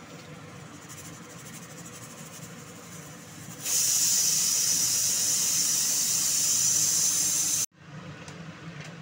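Pressure cooker whistle blowing off steam: a loud, high hiss starts about four seconds in, holds steady for about four seconds, then cuts off suddenly. The whistle signals that the cooker is up to pressure, and the cook counts four or five of them to time the dish.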